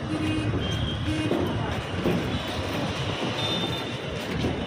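Busy street noise: vehicle traffic and scattered voices, steady throughout, with a few brief tones that may be horns.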